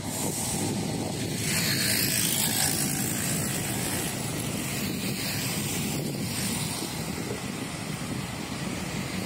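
Steady city street traffic noise, louder for a moment as a vehicle passes about two seconds in.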